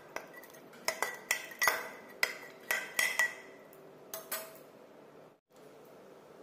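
A spoon stirring curry in a metal pressure cooker pot, clinking against the pot in quick, uneven taps with a bright ringing tone for the first three seconds or so. Two more clinks follow a little after four seconds.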